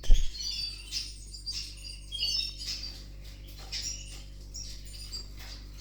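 Canaries chirping and twittering in short, scattered high calls over a steady low hum.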